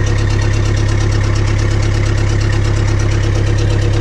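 Land Rover Series 3's 2.25-litre four-cylinder diesel engine idling steadily with an even, rapid clatter.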